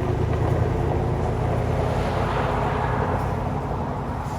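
A motor vehicle running: a steady low engine rumble with a broad rush over it that swells about halfway through and eases slightly near the end.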